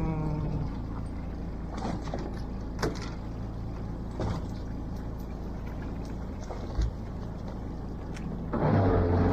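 Fishing boat's engine running steadily at a low hum, with a few light knocks and taps, then getting louder about eight and a half seconds in as the engine is throttled up.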